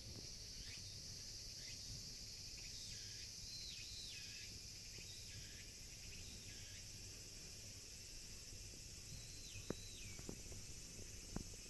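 Faint outdoor insect chorus: a steady high-pitched hiss of late-summer insects. Repeated short chirps slide down in pitch through the first half and come once more a little past the middle. A few sharp ticks come near the end.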